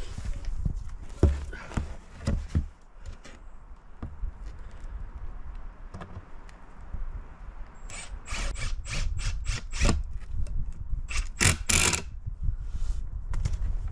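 Wooden table parts being handled and fastened: scattered knocks, then a quick run of sharp mechanical clicks about eight seconds in and a few louder ones near the end.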